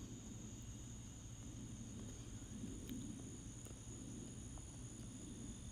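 Quiet background with a faint, steady high-pitched whine and a low hum underneath.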